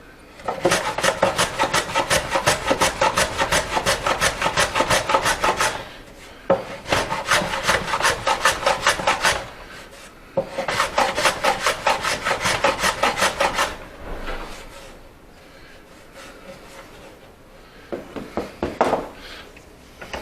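Quick back-and-forth strokes of a hand tool rubbing across wood, about four or five a second, in three long runs with short pauses between, then a few softer strokes near the end: the tenons on a rebuilt wooden locker door being cleaned up by hand.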